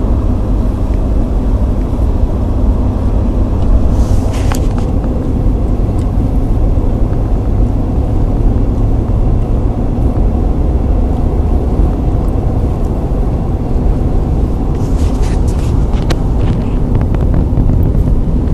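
Car driving, heard from inside the cabin: a steady low rumble of road and engine noise. A few short rustles and clicks come about four seconds in and again near the end.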